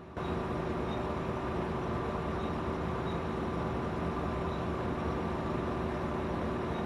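A vehicle engine running steadily at an even drone, cutting in suddenly right at the start.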